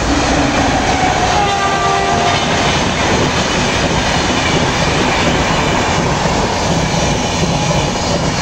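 An Indian Railways WAP-7 electric locomotive and its red passenger coaches passing close by: a loud, steady rush of wheels on rails.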